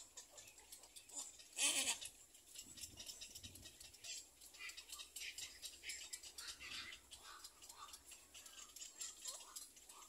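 Little egret chicks calling in the nest: a rapid, dry clicking rattle, with a louder burst of short rising squeaks about two seconds in and a few fainter squeaks later on.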